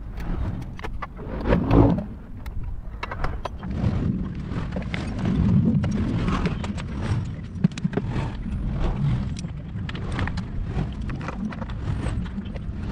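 Irregular clicks and knocks of parts being handled as the scooter's plastic CVT cover is fitted back on, over a continuous low rumble, with a louder low thump about two seconds in.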